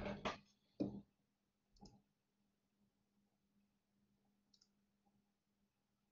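Near silence broken by a few sharp clicks in the first two seconds, the first the loudest, then a couple of faint ticks.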